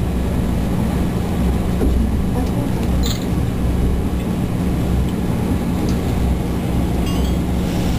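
Steady low mechanical rumble with a constant low hum.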